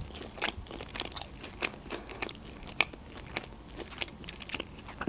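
A person chewing a mouthful of sushi roll: irregular soft crunches and wet mouth clicks.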